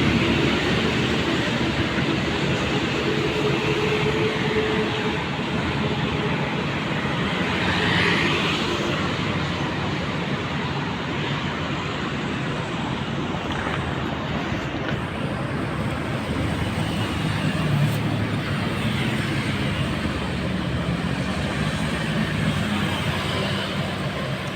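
Continuous road traffic: engines and tyres of passing vehicles make a steady, dense noise, with one vehicle swelling louder about eight seconds in.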